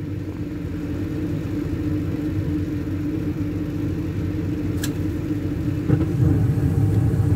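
2012 Carrier gas furnace starting up in heat mode: the draft inducer motor runs with a steady hum and rumble. A sharp click comes about five seconds in, and about six seconds in the low rumble grows louder as the burners light.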